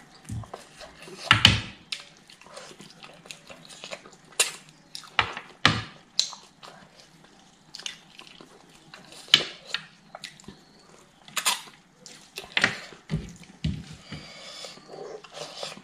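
Close-up wet eating sounds: sucking and chewing meat off a chicken bone, with irregular lip smacks and slurps.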